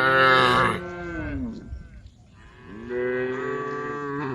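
Cows mooing: a loud, long moo right at the start that drops in pitch and fades by about a second and a half, then a second long moo from about three seconds in.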